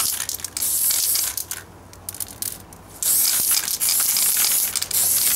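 Aerosol spray paint can hissing as paint is sprayed onto a steel helmet, in two bursts with a pause of about a second and a half between them.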